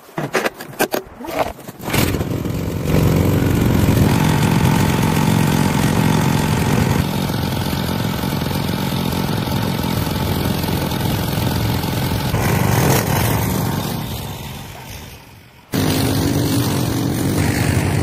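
A few knocks, then a motor vehicle engine running steadily. It fades out, and a steady engine-like drone with a low hum cuts in suddenly near the end.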